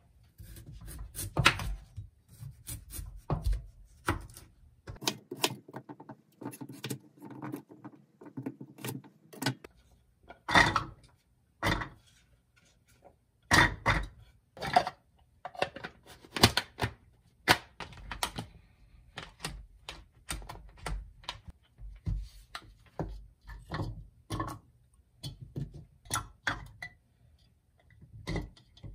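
Knife cutting a raw carrot on a wooden cutting board, then carrot chunks knocking into a plastic mini chopper bowl: irregular sharp knocks and clicks.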